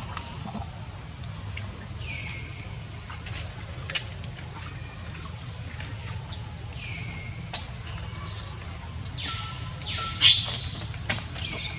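Macaques at a water jar: a few short falling squeaks, then two loud, high-pitched squeals near the end, over a steady background rumble with scattered light clicks.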